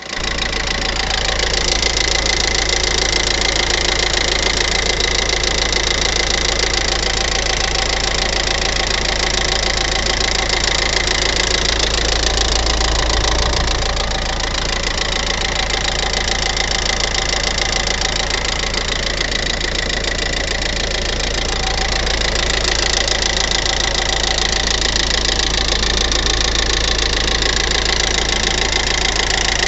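Hyundai i40 engine idling steadily with a rapid, even ticking, which the owner ties to a recent timing-chain replacement.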